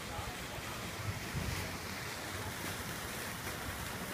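Wind rumbling on a phone's microphone over a steady outdoor hiss, with the rumble strongest about a second in.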